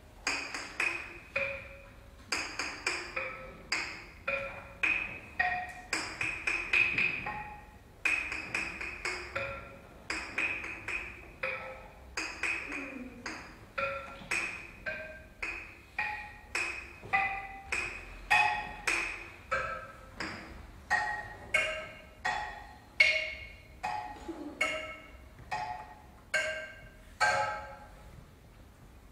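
Tuned mallet percussion, like a small wooden xylophone, played as a slow line of single struck notes at changing pitches, about one to two a second, each ringing briefly and fading. The playing stops shortly before the end.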